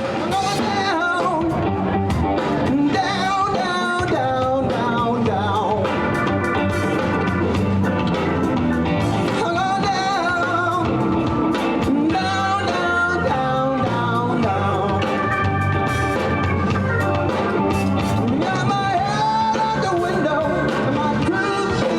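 Live band music with a lead singer over a steady bass beat.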